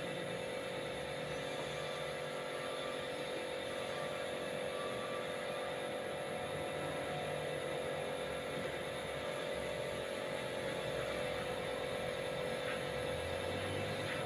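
Air compressor running steadily with a constant hum, supplying air through a hose to a spray gun that is spraying melamine clear-gloss lacquer.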